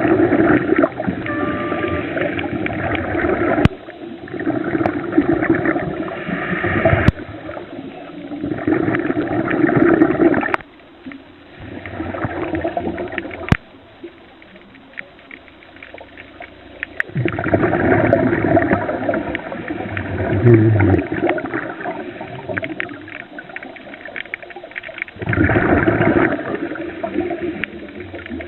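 Bubbling and gurgling recorded underwater, coming in bursts of a few seconds separated by quieter stretches.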